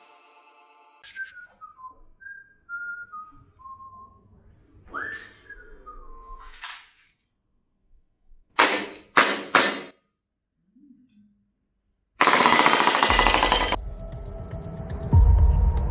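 A short whistled tune falling in steps, then three quick, loud shots from an airsoft gun, a burst of noise lasting over a second, and music coming in near the end.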